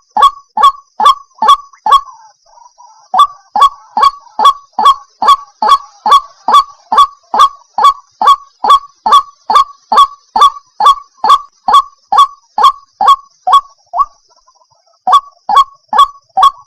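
White-breasted waterhen (ruak-ruak) calling: a loud, monotonous series of short honking notes, about two a second, pausing briefly twice.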